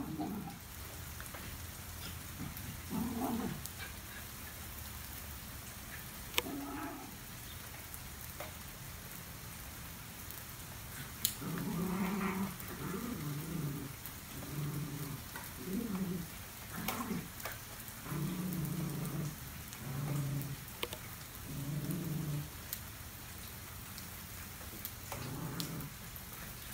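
Two schnauzers play-growling as they wrestle, a string of short growls about once a second through the middle, over a steady patter of rain.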